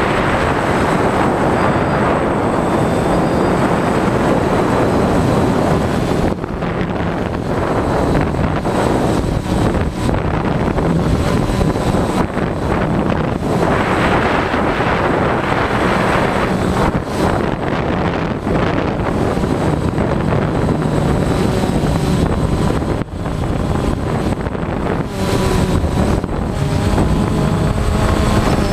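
Multirotor drone's propellers and motors buzzing steadily, picked up by a camera on the drone itself, with a thin high whine over the noise.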